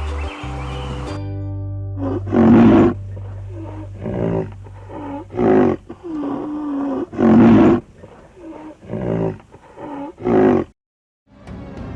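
A large wild animal calling about six times in a row, each call a deep pitched cry of under a second, the second and fourth the loudest, over steady background music. The sound cuts out to silence shortly before the end.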